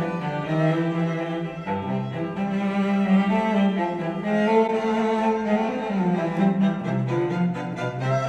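Classical music with bowed strings, played back through Yamaha HS8 studio monitors and recorded by a microphone in the room. Near the end the playback switches to Tannoy Gold 8 monitors.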